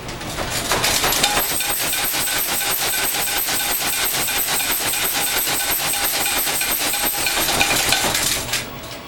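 Earthquake simulator shaking: a loud, fast, continuous rattling and clattering with a faint high whine over it. It starts just under a second in and cuts off suddenly near the end.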